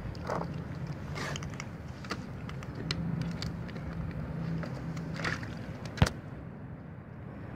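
Wet cat-food chunks sliding and plopping out of a tipped tin can onto a foam tray, with a few soft wet scrapes. One sharp knock comes about six seconds in, over a steady low hum.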